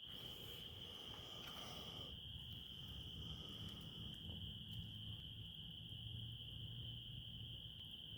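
Crickets trilling in one steady, unbroken high tone, over a low rumble.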